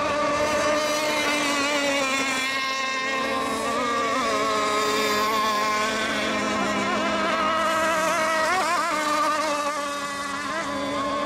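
Several radio-controlled racing boats running together on the water, their high-pitched motors mostly steady. Their pitches swing up and down now and then as the boats throttle through the turns.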